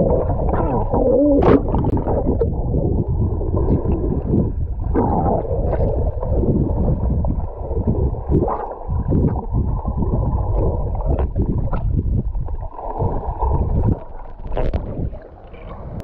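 Underwater sound from an action camera held below the surface by a swimmer: muffled rushing water with bubble gurgles and frequent small knocks.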